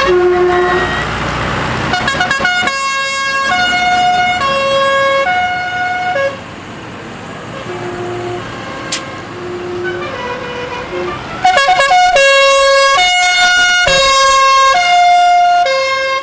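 A musical vehicle horn playing a tune of short held notes, each about half a second long. It is loud for the first six seconds, fainter and sparser for the next few seconds, then loud again.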